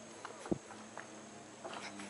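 Faint, irregular light knocks and clicks from moving along a railway line over its wooden sleepers, the sharpest about half a second in.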